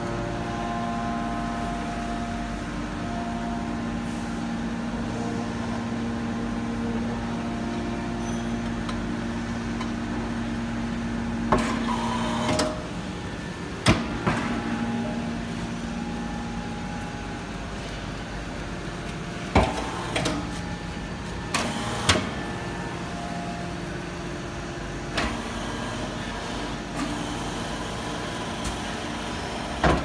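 Hydraulic scrap-metal baler for metal shavings running with a steady motor-and-pump hum that shifts in pitch about twelve seconds in. Through the second half come about ten sharp metal clanks and bangs from the press.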